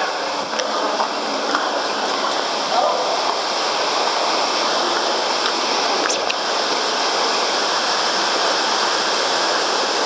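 Waterfall water pouring and splashing in a steady, loud rush.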